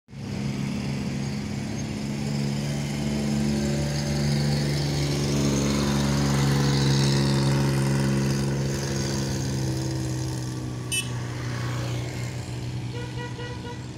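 A heavy vehicle's engine running steadily, swelling a little louder through the middle and easing off later. There is a single click about eleven seconds in, and a rapid series of short beeps near the end.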